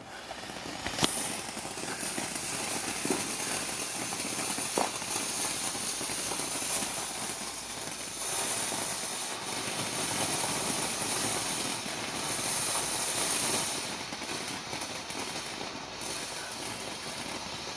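TNT Spider Web Fountain, a ground fireworks fountain, burning and spraying sparks: a steady hiss with a few sharp pops, the clearest about a second in and near five seconds in.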